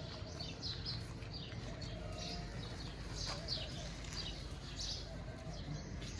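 Small birds chirping over and over, many short high chirps overlapping, above a steady low background rumble.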